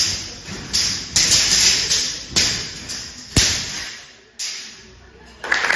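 Swords clashing against round shields in a kalaripayattu sword-and-shield bout: a rapid series of sharp strikes, about one or two a second, each ringing on in the hall. The sharpest blow comes a little past the middle, and a quick flurry of strikes follows near the end.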